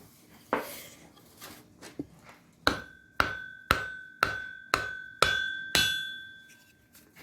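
Hammer blows driving a wrought iron axe head onto its wooden handle: a few softer knocks, then seven evenly spaced strikes about two a second, each leaving a high metallic ring.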